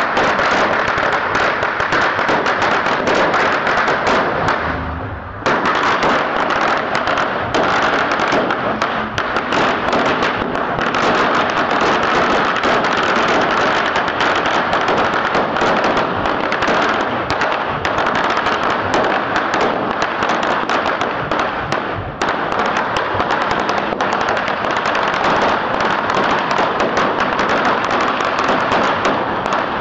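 A pagara, a very long Surinamese string of firecrackers, going off in a dense, unbroken rapid crackle of bangs. There is a brief lull about five seconds in.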